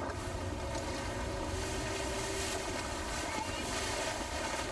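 Wind rumbling on the microphone and water rushing past the hull of a 1720 sportsboat under sail, a steady noise without sharp events.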